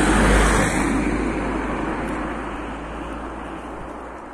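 A car passing close by and driving away: its tyre and engine noise is loudest about half a second in, then fades steadily.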